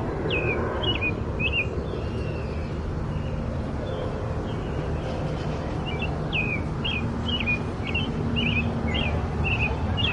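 A bird calling in short, sharp repeated chirps: a few near the start, then a quicker run of about two or three a second from about six seconds in. Under the calls runs a steady low outdoor rumble.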